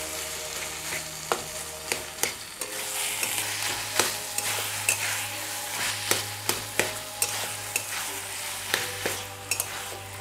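Metal spatula stirring and scraping a thick taro-stem curry in a metal kadai, with repeated irregular clicks of the spatula striking the pan over a steady sizzle of frying.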